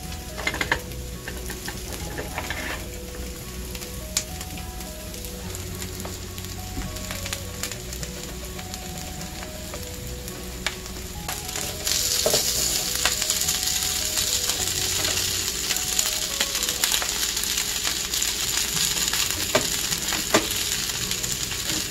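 Goetta slices frying in a griddle pan, a steady sizzle that gets louder about halfway through. A few sharp clicks from the spatula turning the slices come near the end.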